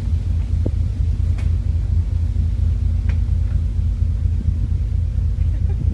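Steady low rumble of a ship under way through pack ice, with a constant hum from its machinery and a few faint ticks.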